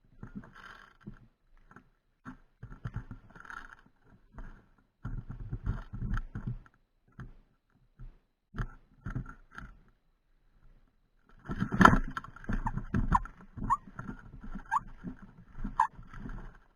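Irregular rustling, scraping and light knocking from an airsoft rifle and its gun-mounted camera being carried and handled as the player moves, with a few short high chirps near the end.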